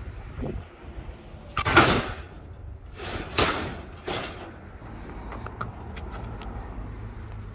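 Three loud bangs with some clatter, the first about two seconds in and the others around three and a half and four seconds in, over a low steady rumble.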